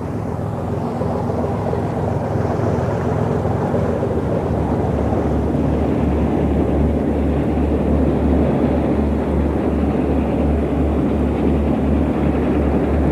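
A boat's engine running steadily under way, over a rushing wash of wind and water. From about six seconds in, a low throb pulses roughly three times a second.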